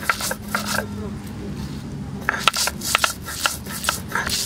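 Dried red chillies and salt being crushed and ground on a flat stone slab with a hand-held grinding stone (sil-batta): an uneven series of gritty stone-on-stone scrapes and crunches.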